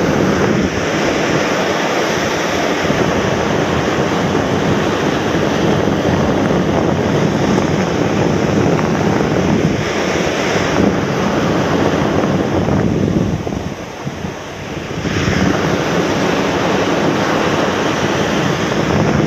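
Surf breaking and washing up a sandy beach, with a strong wind buffeting the microphone; the noise eases for a moment about two-thirds of the way through.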